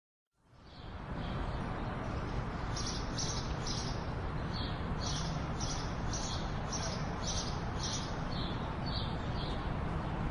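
Birds chirping over a steady outdoor background noise, fading in about half a second in; the short high chirps come in a quick run of about three a second through the middle.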